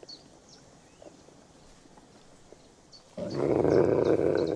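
Grey wolf growling loudly for about a second and a half, a warning over food at a carcass; it starts suddenly about three seconds in and cuts off abruptly. Faint birdsong before it.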